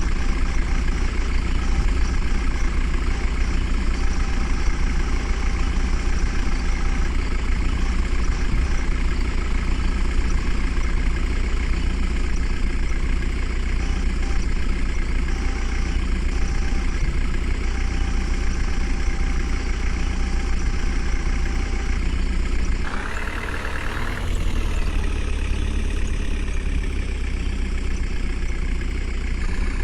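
Heavy diesel engine running steadily at an idle-like pace. Its sound changes briefly about three-quarters of the way through.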